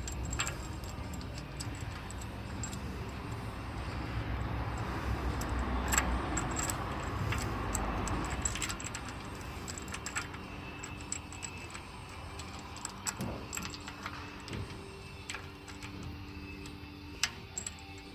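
Metal tools and engine parts clinking and rattling as they are handled, with scattered sharp clicks and some rustling, busiest in the first half.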